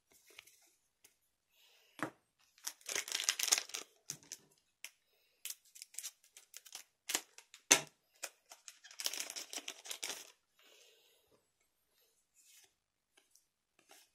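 Foil trading-card booster pack being crinkled and torn open, in two rustling stretches, with scattered sharp clicks and taps of cards and wrapper being handled.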